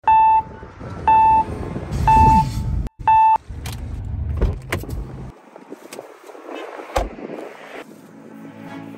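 Car warning chime beeping four times, about once a second, each a short steady tone. Then a few seconds of rustling handling noise with scattered knocks, one louder knock about seven seconds in.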